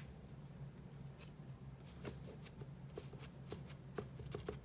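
Light scattered clicks and rubbing from handling a sneaker and dabbing white touch-up paint onto its sole, over a low steady hum.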